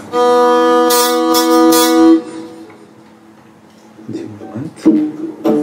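Hurdy-gurdy drone sounding steadily as the wheel turns, with the trompette string's buzzing bridge rattling in three quick bursts; the note stops after about two seconds. A few short, separate string notes sound near the end.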